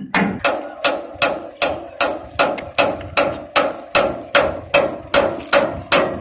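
Steady metallic knocking, about two and a half strikes a second, each strike sharp with a short ring.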